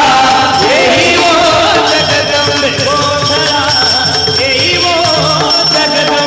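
Marathi kirtan devotional music in the middle of a gondhal song: a wavering melody over continuous jingling, ringing percussion.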